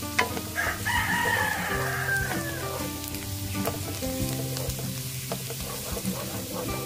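Minced garlic sizzling in hot oil in a nonstick wok, stirred and scraped with a wooden spatula. A rooster crows once, a long falling call about half a second in, over soft background music.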